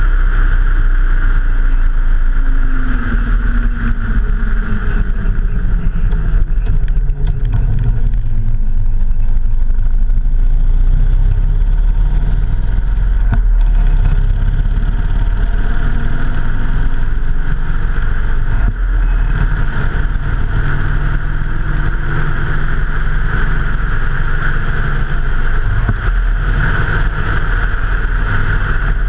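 A motorcycle riding along: steady engine and road noise heard from a camera mounted on the bike. The engine pitch falls and rises a few times as speed changes.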